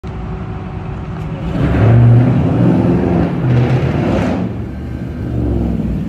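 Hellcat-engined Chrysler 300 SRT's supercharged V8 running as the car pulls forward, with two louder surges of throttle, about two seconds in and again about four seconds in.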